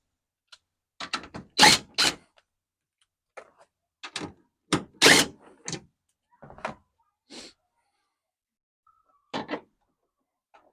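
A scattered series of short knocks and clunks, some in quick pairs, from hands and tools working on a pickup truck's taillight housing as it is unfastened to be pulled out.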